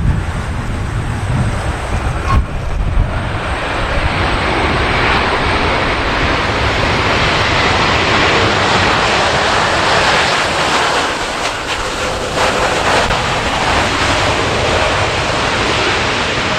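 Jet airliner engines passing, a loud rushing noise that builds over the first few seconds and then holds steady. Wind buffets the microphone at the start.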